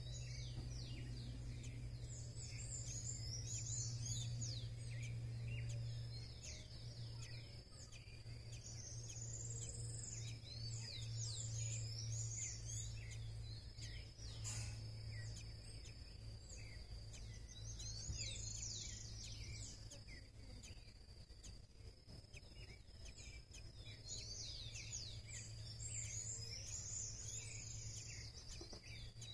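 Wild birds chirping in short clusters of quick rising and falling notes every few seconds, over a steady high-pitched tone and a low hum.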